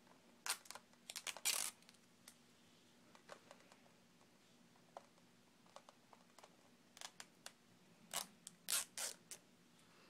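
Fingers handling and picking at a plastic Blu-ray case and its sticker: faint scratches, clicks and short scrapes in two bunches, one about half a second to a second and a half in, the other around seven to nine seconds.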